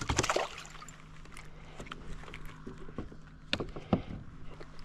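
A few sharp knocks and taps on a plastic fishing kayak as a crappie is lifted out of the water and swung aboard, with the loudest pair about three and a half to four seconds in, over a faint steady hum.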